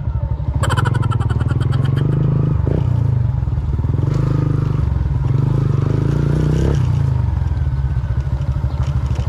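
Motorcycle engine running while riding, a steady low engine note that rises and falls a little, with a short higher-pitched sound near the start.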